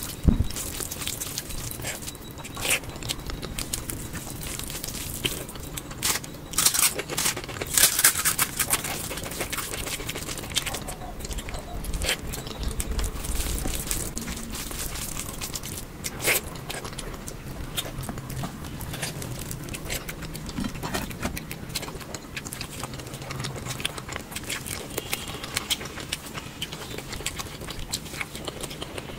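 Close-miked eating sounds: chewing, lip smacks and wet mouth clicks, coming in irregular bursts, with a few sharper clicks.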